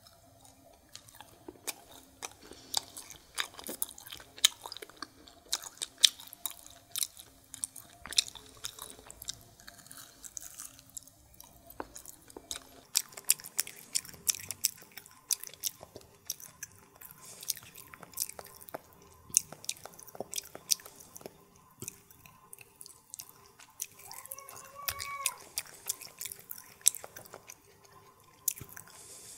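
Close-miked chewing of Indian sweets: quick, wet mouth clicks and smacks, many to the second, throughout.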